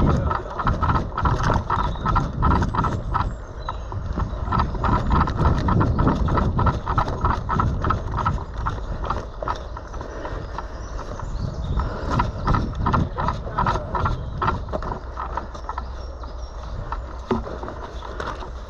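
Footsteps of a person moving quickly over outdoor ground, with wind rumbling on the microphone.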